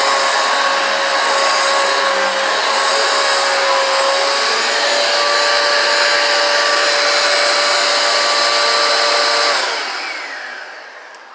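Eureka AirSpeed One upright vacuum cleaner running steadily with a steady motor whine, its freshly replaced drive belt turning the brush roll. About nine and a half seconds in it is switched off and the motor spins down and fades.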